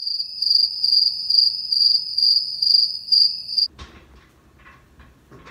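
A cricket chirping: a loud, high, continuous trill that swells about twice a second and cuts off suddenly a little over three and a half seconds in. Faint clicks and rustling follow.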